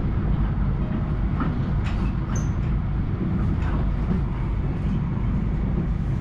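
Akita Shinkansen Komachi train running at speed, heard from inside the passenger car: a steady low rumble with a few faint clicks from the track.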